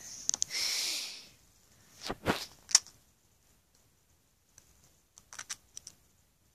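Handling noise close to the microphone: rustling of plush toys and bedding, with scattered clicks and taps. There is a short rustle at the start, a cluster of louder taps about two seconds in, and more light clicks near the end.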